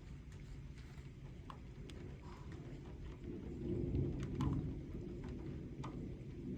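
Distant thunder rumbling, swelling about three and a half seconds in and easing off a second later, with scattered light ticks of rain drips.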